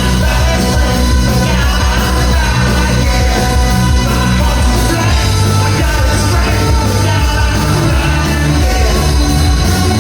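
Live rock band playing at full volume, with distorted guitars, heavy bass and drums under a shouted, singing lead vocal, recorded from the audience.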